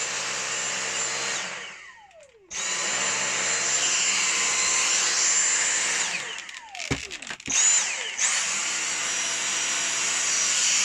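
Dyson V6 Animal cordless vacuum cleaner running with a steady high-pitched motor whine, switched off and on several times. Each time it cuts out the whine falls away as the motor spins down, and around two-thirds through it gives one brief burst before running again.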